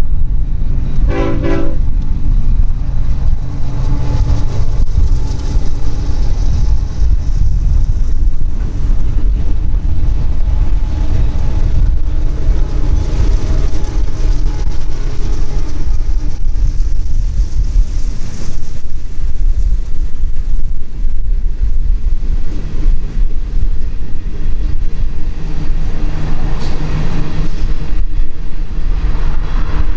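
Diesel freight train running past with a heavy, steady rumble, and a short locomotive horn blast about a second in.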